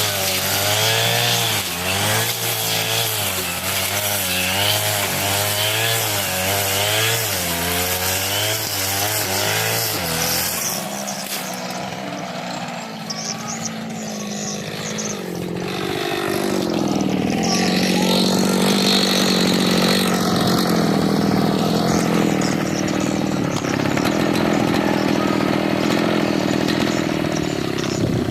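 40cc two-stroke brush cutter engine running under load, its pitch wavering up and down as the blade cuts through thick grass. About ten seconds in the engine eases off, and its pitch falls to a lower, steady note.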